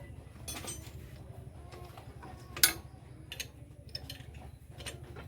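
Irregular metallic clicks and taps of hand tools and engine parts being handled during engine repair, with one sharp click, the loudest, about two and a half seconds in, over a low steady hum.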